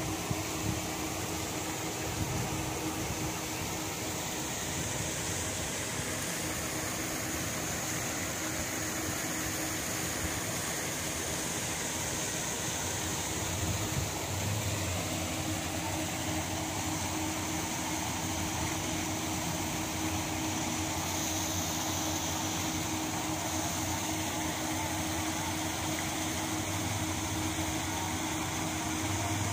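Paddlewheel aerators on a shrimp pond running steadily: a constant motor hum over the even rush of churned, splashing water.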